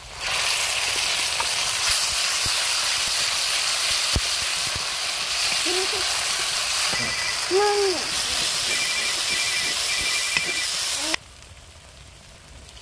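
Wet masala paste poured into hot oil in a kadhai and frying with a loud, steady sizzle as it is stirred with a wooden spatula. The sizzle stops abruptly about eleven seconds in.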